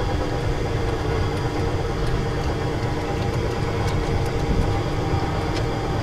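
Tractor ride car running along its guided track: a steady low rumble with a constant hum.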